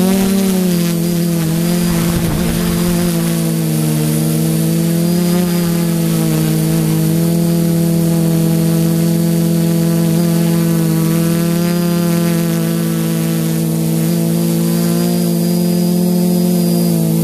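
Brushless motors and 10x4.5 APC propellers of a Reptile 550 quadcopter, heard close up from the frame, making a steady buzzing hum with a slight waver in pitch as the quad hovers and climbs. A brief gust of noise comes about two seconds in.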